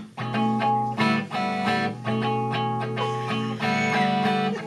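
Guitar strummed in a run of ringing chords, each new strum coming about every half second.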